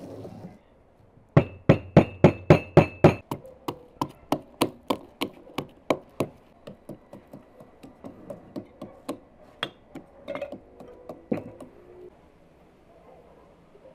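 A spoon stirring briskly in a small cup, knocking against its sides about four times a second. The first few strikes are the loudest and ring; then the knocking goes on softer and less regular before stopping near the end.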